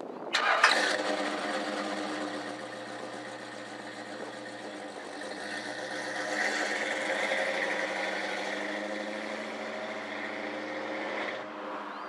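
1969 Dodge Super Bee's V8 cranking and catching with a sharp burst about half a second in, then running steadily through its exhaust, swelling louder midway as the car pulls away. The sound cuts off abruptly near the end.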